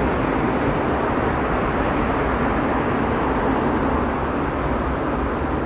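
Steady, even background noise of a metro station platform, with a train standing at the platform.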